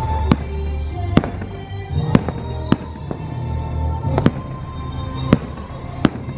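Aerial fireworks shells bursting in a string of sharp reports, about eight in six seconds at uneven intervals, over the show's music soundtrack.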